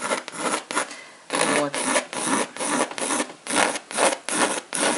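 Graphite pencil scratching across drawing paper in quick, short strokes, about two to three a second, laying down small wavy lines of shading.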